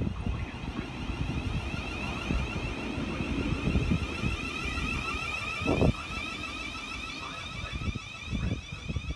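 Electric multiple-unit train running along the platform with a steady electric whine over a heavy rumble of wind on the microphone. There is one sharp knock about six seconds in.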